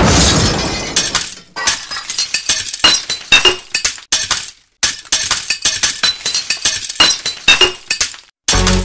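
Glass shattering sound effect: one loud crash, then shards tinkling and clinking in clusters for several seconds. Music starts just before the end.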